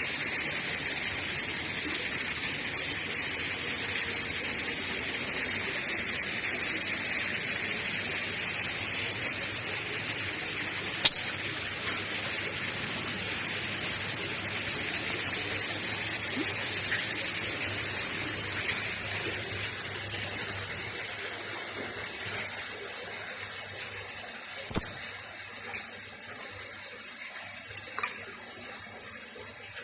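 Steady rushing hiss like water running from a tap. Two short, sharp, high squeaks cut through it, one about a third of the way in and one later on.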